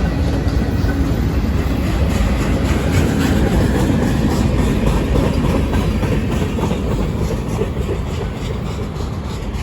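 Freight cars of a long manifest train rolling past: a steady low rumble of steel wheels with a rhythmic clickety-clack over the rail joints, easing off slightly near the end.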